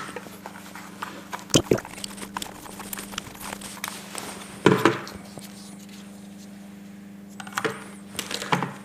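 Handling noises as a plastic power strip is bound with electrical tape and twine: scattered small clicks and rustles with a few louder knocks, the loudest about halfway through, over a steady low hum.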